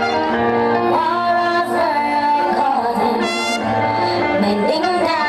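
Music with a singing voice over a bass line, played loud through a sound-clash sound system.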